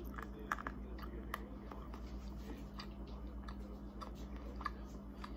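A person chewing sweets close to the microphone: irregular small clicks and crunches over a steady low hum.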